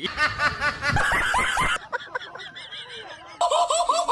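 Laughter: quick runs of short, high-pitched laughs, several a second, in sections that switch abruptly twice.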